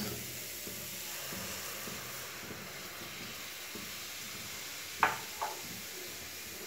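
Milk sizzling in a hot nonstick pan around grated carrot, a steady hiss as it starts to bubble. Two brief taps about five seconds in.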